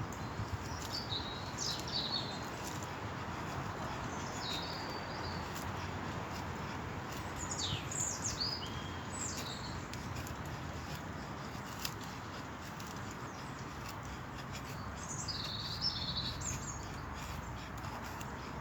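Small birds chirping: short, sharply falling calls come in scattered groups of one to three, over a steady background rush.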